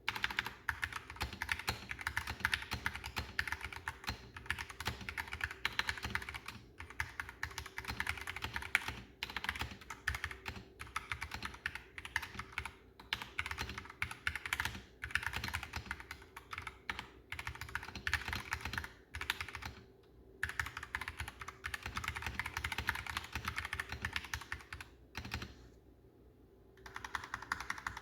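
Typing on a Higround 65% mechanical keyboard with Gateron Red linear switches, plastic case, aluminium top plate, silicone dampening and pre-lubed stabilizers: a fast, steady clatter of keystrokes. It breaks off briefly about two-thirds through and pauses again for a second or so near the end.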